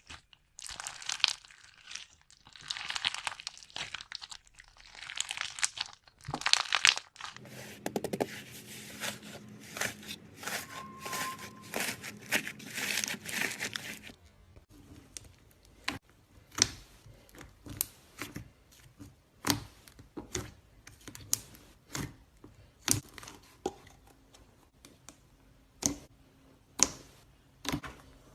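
Slime being squished and worked by hand, making a dense crackling, crunching sound for about the first half. It then turns to scattered sharp clicks and pops.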